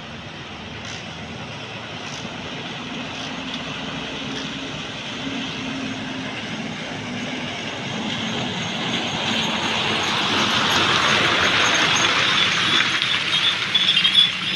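Hino dump truck's diesel engine running as it approaches and passes on a wet road. The hiss of its tyres on the wet surface swells to a peak near the end.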